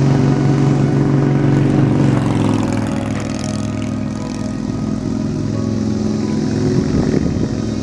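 A motor vehicle engine running steadily, its pitch shifting a couple of times.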